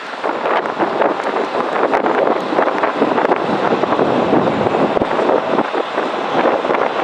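Boeing 777 twin-engine jet airliner passing low, its jet engines making a loud, steady rushing roar that flickers without any clear tone.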